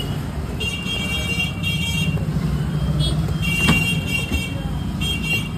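Street traffic: a steady low rumble of engines, with a high-pitched horn tooting in short blasts four times. A single sharp knock comes about three and a half seconds in.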